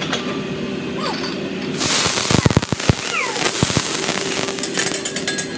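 Oil on a hibachi grill's steel griddle catching fire with a sudden whoosh about two seconds in, a few low thumps as the flame flares, then burning noise dying away. Near the end, a run of metal clinks on the griddle.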